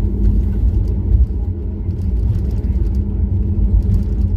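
Airliner cabin noise: a steady, loud low rumble of the jet engines and airflow with a constant hum.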